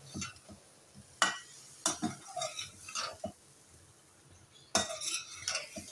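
A metal spatula stirring chicken pieces and spice masala in a metal karahi, knocking and scraping against the pan in irregular sharp clinks, with a quieter pause a little past the middle.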